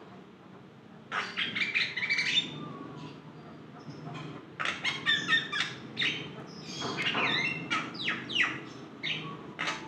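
Javan myna (jalak kebo) singing a chattering run of short, varied notes. A burst comes about a second in, and a longer, denser run starts about halfway through and lasts to the end.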